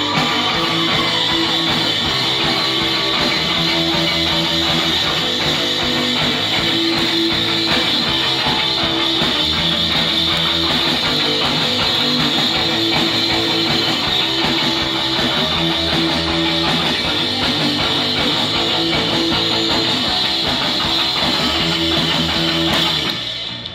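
Live punk rock band playing loud: distorted electric guitar-type strings over a full drum kit in a steady, repeating riff, with a sudden stop near the end.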